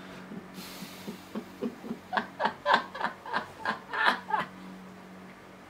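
A woman's fit of laughter: short laughs in quick succession, about four a second, growing louder and then stopping about four and a half seconds in.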